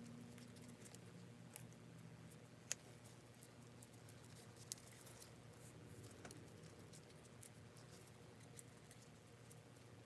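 Faint handling noises of gloved hands working blue masking tape around a metal smoke stack: scattered small clicks and rustles, with two sharper clicks about two seconds apart, over a low steady hum.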